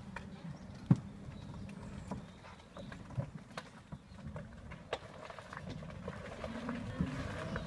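Buggy riding along a paved path: a low steady hum with scattered clicks and knocks, the sharpest about a second in.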